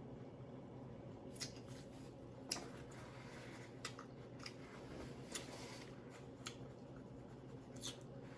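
Quiet eating: soft chewing with a scattering of small sharp mouth or utensil clicks, about one every second.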